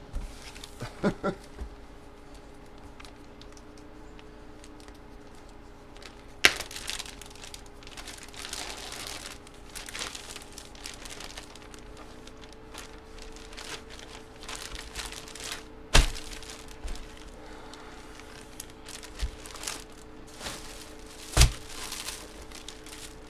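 Plastic packaging and bags crinkling and rustling as trading cards are handled and bagged, with three sharp knocks on the table.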